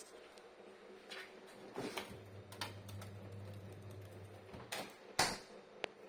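Hitachi refrigerator making an abnormal noise: irregular sharp clicks and knocks, half a dozen over a few seconds, the loudest about five seconds in, over a steady hum. A deeper hum comes on about two seconds in and stops some two and a half seconds later.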